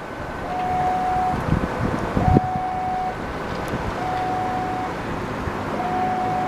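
Railway level-crossing warning siren sounding a repeating two-tone alarm, a higher tone followed by a stronger, lower one, the pair recurring about every 1.7 s; the siren is described as badly malfunctioning. Traffic and wind noise run underneath, with a few knocks a little over two seconds in.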